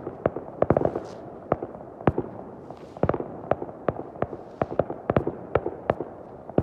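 Fireworks going off: many sharp bangs and crackles at an uneven pace, some coming in quick clusters, with faint whistles of rising shells.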